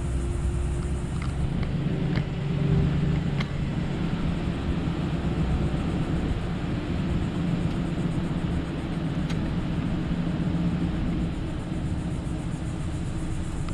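Steady low rumble of a car's engine and tyres, heard from inside the car as it drives.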